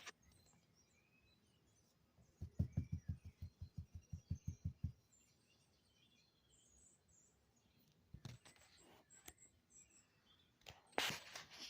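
Small birds chirping faintly in short, scattered notes. About two and a half seconds in comes a quick run of about a dozen low pulses, roughly five a second, and a short rush of noise comes near the end.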